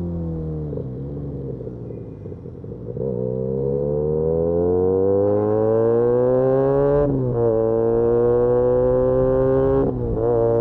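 Benelli 302S parallel-twin engine through an Austin Racing titanium aftermarket exhaust, heard on the move. The revs drop away off the throttle, then the bike pulls hard, with rising revs cut by two quick upshifts, one about seven seconds in and one near the end.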